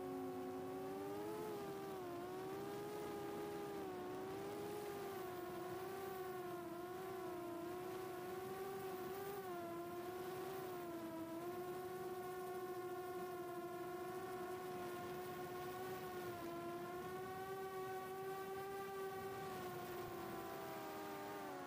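Brushless motors and propellers of a 4-inch long-range FPV quadcopter (HGLRC 1303.5 4500kv motors) running at a steady cruise, a continuous whine whose pitch wavers slightly with throttle and dips briefly near the start.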